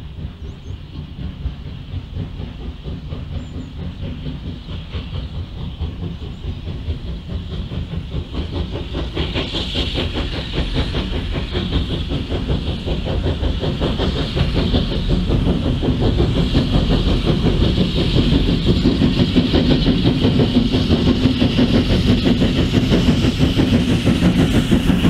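A steam locomotive working a train as it draws near: rapid exhaust beats and wheels clattering on the rail joints, with a hiss of steam, growing steadily louder.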